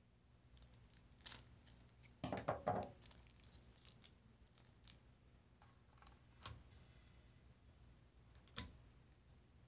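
Scissors snipping through a foil sachet, then a louder clatter and crinkle of foil packets being handled on a tabletop, followed by a few single sharp clicks.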